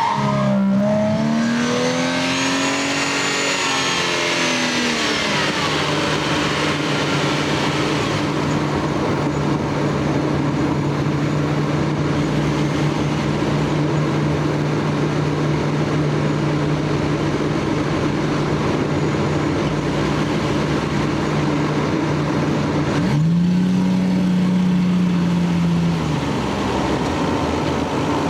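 Stock Lexus GS300's 3.0-litre straight-six engine and exhaust. The engine revs up and falls back in the first few seconds, then runs at a steady speed for a long stretch, with another short rev and drop near the end.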